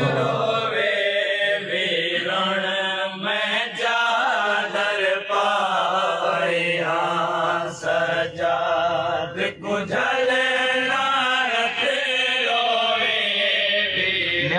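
Men's voices chanting a nohay, a Shia lament for Imam Hussain, in a steady sung recitation without instruments, heard through a microphone and speakers.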